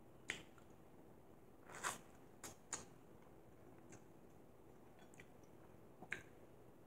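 Faint sounds of a person chewing and eating: about half a dozen short, sharp mouth smacks and clicks over quiet room tone.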